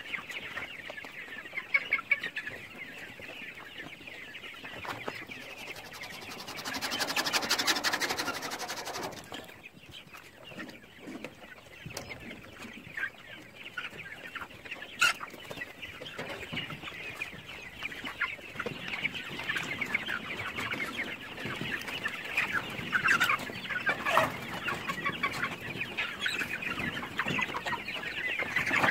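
A large flock of chickens clucking continuously, many birds calling over one another. A louder, fast-pulsing noise comes in for about three seconds near the middle, and a few sharp clicks stand out.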